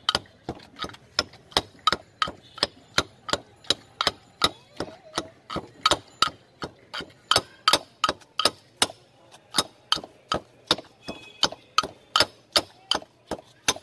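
Metal pestle pounding in a stone mortar, mashing green banana bhorta: a steady run of sharp knocks, about three a second.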